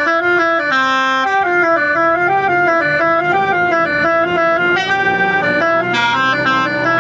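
Bus 'Basuri' telolet musical horn playing a continuous stepping melody in reedy, organ-like tones, with a second line running parallel above it.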